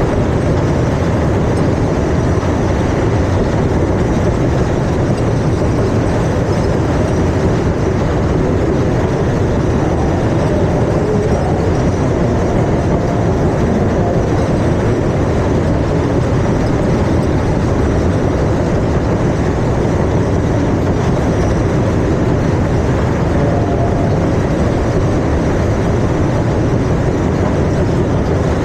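Steady loud rumbling noise of a moving ride, heard from on board, with no breaks or distinct knocks.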